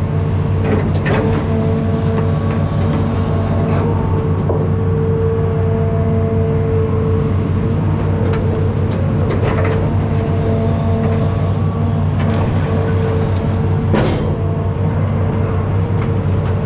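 Hitachi ZX210 amphibious excavator's diesel engine running steadily, with a steady tone over its drone and scattered knocks, the loudest about fourteen seconds in.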